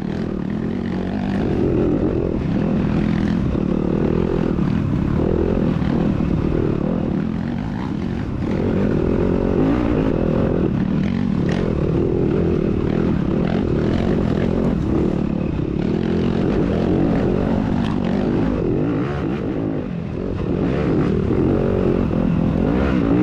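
A 2021 Yamaha YZ250FX's 250 cc single-cylinder four-stroke engine racing off-road, revving up and easing off again and again as the rider works the throttle.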